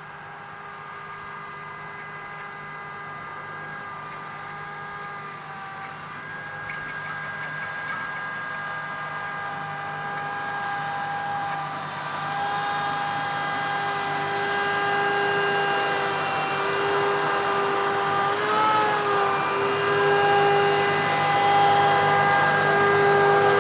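John Deere 6105R tractor's four-cylinder diesel running steadily as it spreads mineral fertilizer with its Rauch spreader, with a steady whine over the engine. It grows steadily louder as the tractor approaches.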